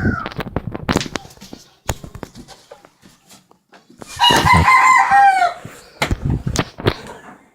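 Scattered knocks and bumps, with a loud drawn-out animal call about four seconds in that drops in pitch at its end.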